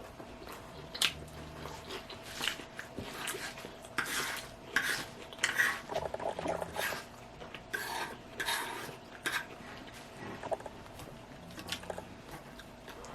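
Utensil clinking and scraping against a dish in short, irregular strokes, as a fork works through a salad.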